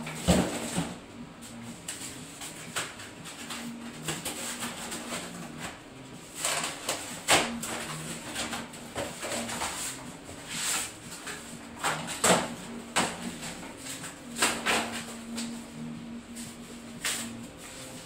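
Irregular knocks, clicks and rustles of a Cube Stereo Hybrid e-mountain bike being handled and its cardboard packaging pulled off, with a low hum that comes and goes.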